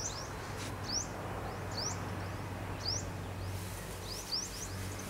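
A bird calling, a short rising chirp repeated about once a second, over a low steady hum.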